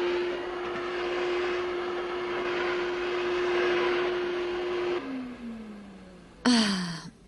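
Vacuum cleaner running with a steady hum and hiss, then switched off about five seconds in, its pitch falling as it winds down. Near the end comes a short sigh with a falling pitch.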